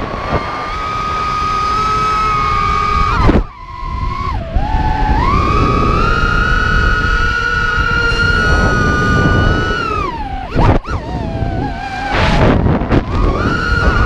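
ImmersionRC Vortex FPV racing quadcopter's brushless motors and propellers whining at high throttle. The pitch drops sharply as the throttle is chopped a few seconds in, climbs back, and drops again near the end. Wind rushes over the onboard camera's microphone throughout.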